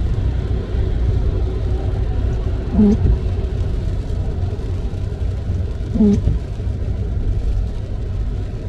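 Car windscreen wipers sweeping through rain, giving a short squeaky groan on each pass about every three seconds: the wiper blades are stiff and dragging on the glass. Under it runs the steady rumble of the car driving on a wet road.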